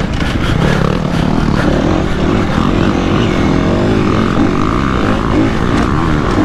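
Enduro dirt bike engine running on a dirt track, its pitch rising and falling as the throttle is worked, with other dirt bikes running close ahead.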